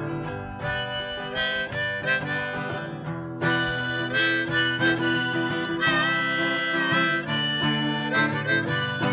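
Harmonica solo over a strummed acoustic guitar, both played by one person with the harmonica in a neck rack; one harmonica note is bent down and back up about six seconds in.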